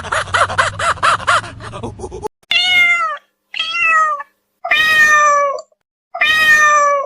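A cat meowing four times in a row, each meow under a second long and falling in pitch. Before it, a rapid run of short, repeated animal calls cuts off about two seconds in.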